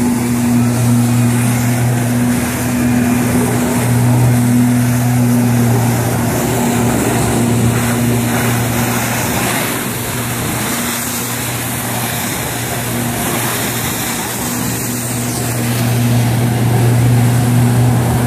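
Personal watercraft engine running steadily at high power to feed a flyboard, a constant low hum with the rush of the water jets. It eases off a little midway and then comes back up.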